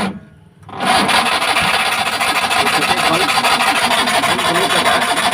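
Maruti Omni's three-cylinder petrol engine being cranked by its starter motor, starting about a second in: a steady, fast whirring that turns the engine over without it firing, the van's cranks-but-won't-start fault.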